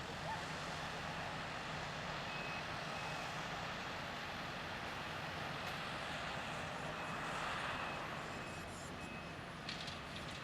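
Heavy diesel construction machinery running steadily, with a reversing alarm beeping in a regular series from about two seconds in. A brief clatter comes near the end.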